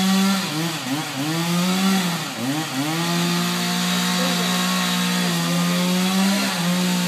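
Chainsaw running under load, cutting through the trunk of a tree that is being felled. The engine speed dips and recovers twice in the first three seconds, then holds steady.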